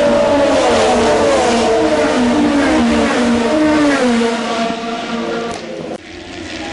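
IndyCar racing cars' 2.2-litre twin-turbo V6 engines running at speed in heavy rain, several engine notes falling and rising in steps through gear changes over the hiss of tyre spray. The engines fade after about four seconds, and a sudden break about six seconds in gives way to a steadier engine drone.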